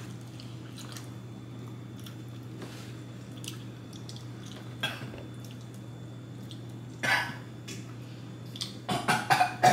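Quiet eating sounds, faint chewing and mouth noises over a steady low room hum, with a short louder sound about seven seconds in and a few more near the end.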